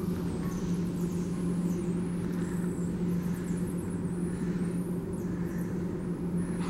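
Steady low mechanical hum at a constant pitch, unchanging throughout.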